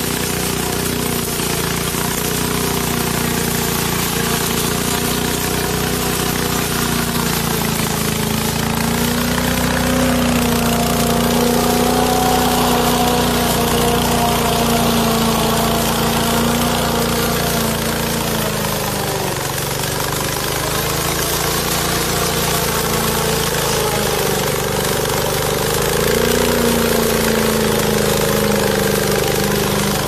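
Engine of a tracked remote-control mower running steadily as it drives through and cuts thick weeds; its note sags about two-thirds of the way through and then picks back up.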